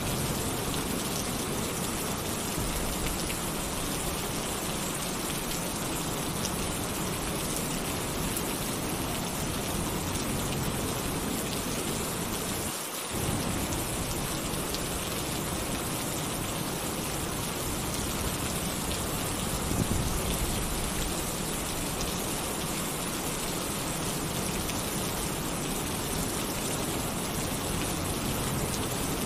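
Heavy rain falling steadily on a tin roof, with a low roll of thunder swelling about twenty seconds in.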